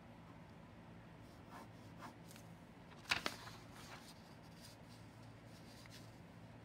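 Ballpoint pen writing on paper over a clipboard, faint scratchy strokes, with two sharp taps close together about three seconds in, the loudest sound. A faint steady low hum runs underneath.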